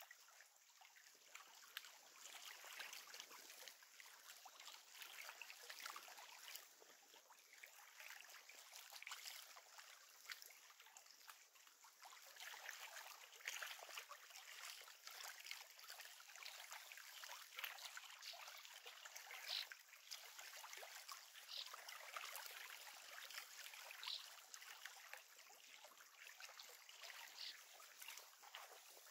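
Near silence: faint lapping and trickling of lake water at the shore, with a few short faint high ticks.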